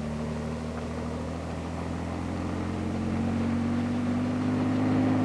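Bell 47-type light helicopter hovering low: its piston engine and rotor make a steady drone with a low hum. The hum rises slightly in pitch and grows a little louder in the second half.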